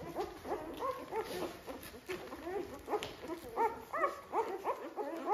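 A litter of four-day-old newborn puppies squeaking and whimpering all together, several short calls a second, each rising and falling in pitch, as they crawl toward their mother to nurse.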